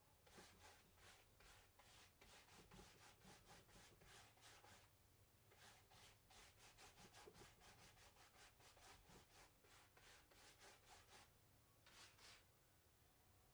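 A round chalk-paint brush scrubbing chalk paint into the upholstery fabric of a chair, in quick, faint back-and-forth strokes about three a second. The strokes pause briefly about five seconds in, and again near the end before a last short flurry.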